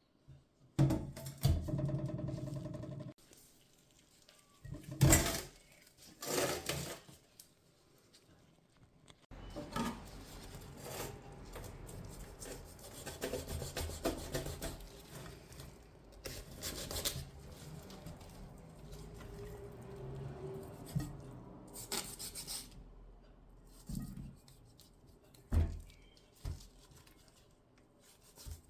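Kitchen handling sounds while cooking: utensils and dishes clattering and scraping, with several sharp knocks, the loudest about one and five seconds in, and stretches of rubbing and rustling.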